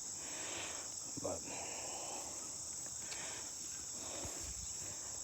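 Steady, high-pitched chorus of insects such as crickets, running without a break.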